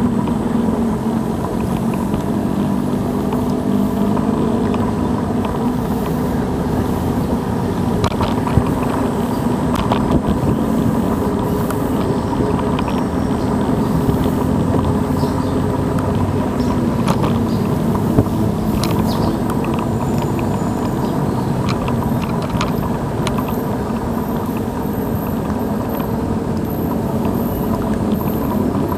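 Steady road rumble from riding a Xiaomi M365 Pro electric scooter, with scattered short clicks and knocks through it.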